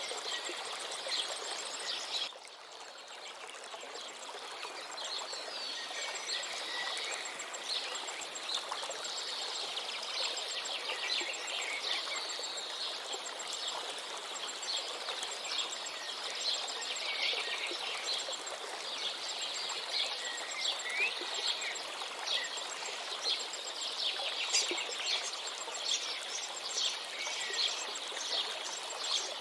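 Many small birds chirping and singing over the steady rush of a river. About two seconds in, the sound drops abruptly and the birds fall quiet for a moment, then the chirping builds back.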